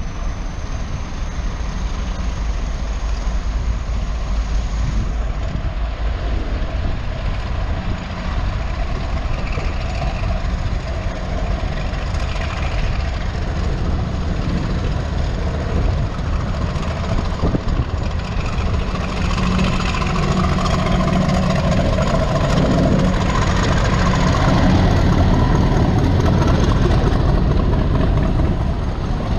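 Heavy diesel locomotive drawing a train slowly into the platform, a steady low engine rumble that grows to its loudest in the last third as the locomotive and coaches come alongside.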